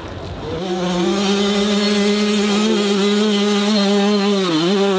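Two-stroke dirt bike engine opening up about half a second in, then held at steady high revs with a brief dip and recovery near the end.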